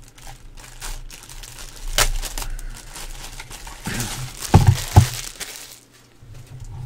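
Packaging crinkling and rustling while a USB hub is unwrapped and handled, with a sharp click about two seconds in and two heavy knocks close together around five seconds in.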